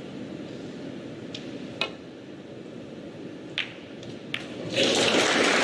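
Quiet arena hum broken by a few sharp clicks of snooker balls. The audience bursts into applause near the end.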